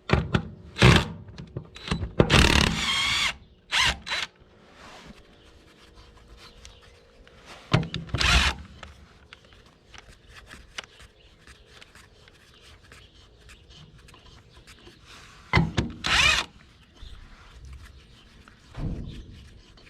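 DeWalt impact wrench loosening the wheel's lug nuts, running in several short bursts with quiet pauses between.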